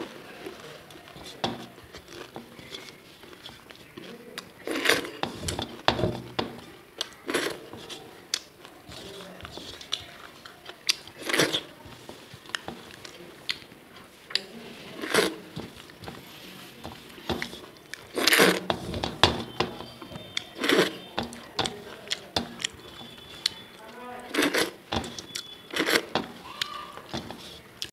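Close-miked finger licking and lip smacking: sharp, wet smacks every second or two as food-covered fingers are sucked clean after eating from a stainless steel plate.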